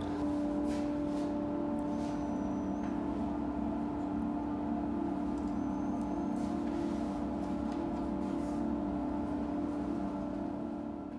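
Steady low hum of factory machinery, a few held tones, with scattered light clicks and two brief high squeaks.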